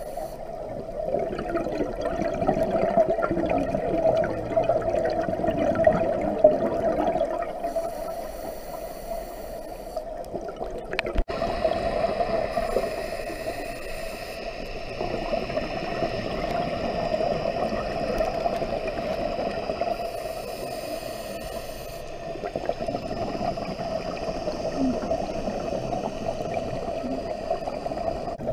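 Underwater sound of a scuba diver's exhaled bubbles from the regulator, gurgling in swells that come and go every several seconds with the breaths, over a steady hiss. A single click about eleven seconds in.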